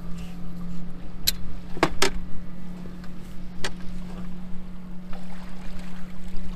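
Mercury outboard motor running with a steady hum. A few sharp knocks come over it as the landing net handles against the boat, two of them close together about two seconds in.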